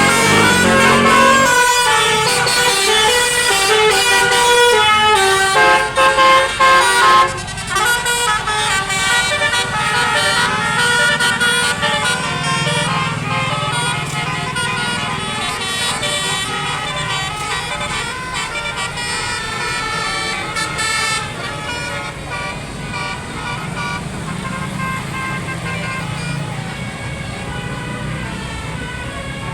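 Tour buses' multi-tone 'telolet' air horns playing quick, stepping melodic tunes over the buses' running engines. The tunes are loudest for the first seven seconds or so, then carry on a little fainter.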